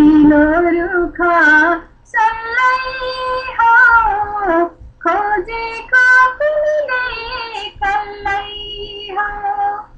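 A high solo voice singing a Nepali song without accompaniment. It sings in phrases of long, bending held notes, with brief pauses for breath between them.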